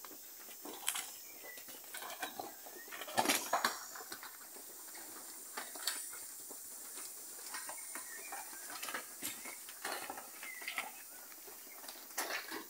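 Cattle moving and feeding in a dirt-floored shed: irregular knocks, clicks and shuffles, loudest a little over three seconds in, over a steady high hiss.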